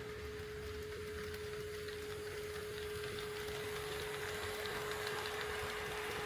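HO-scale model train running on the track, its wheel and motor rattle growing louder over the last few seconds, over a steady high hum-like tone.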